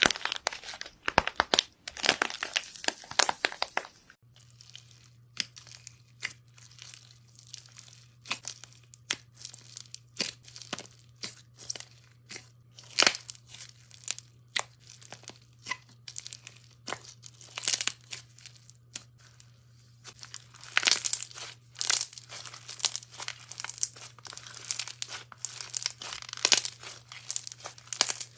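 Slime being squeezed and pressed by hand, giving dense runs of crackling, popping clicks with sparser single clicks between them.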